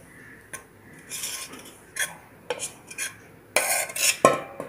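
Steel spoon scraping and clinking against a stainless steel bowl as thick rava cake batter is scraped out into a steel plate: irregular short scrapes and knocks, the loudest cluster near the end.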